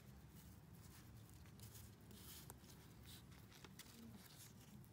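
Near silence, with faint rustling and light ticks from a handful of vellum stickers being shuffled through by hand.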